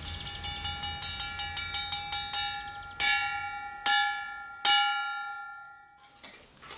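Hanging metal bar struck with a metal rod as a gong. It starts with a quick run of ringing strikes, about five a second, then gives three heavier, slower strikes whose ring dies away.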